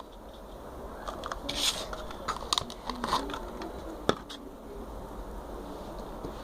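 Purple slime with styrofoam beads being squeezed and stretched by hand, giving soft squishing with scattered small clicks and crackles and one sharper click about four seconds in.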